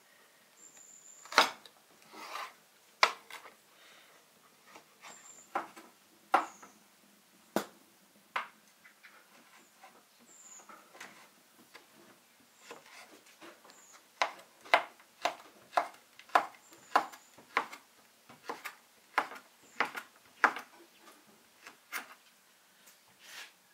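Knife chopping on a wooden cutting board: scattered knocks at first, then a steady run of strokes at about one and a half a second in the second half.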